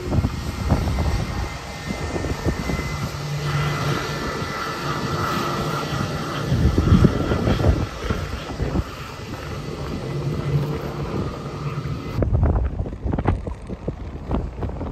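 Twin-engine jet airliner's engines running with a steady rush and whine as it moves along the runway. The engine noise cuts off suddenly near the end, leaving wind gusting on the microphone.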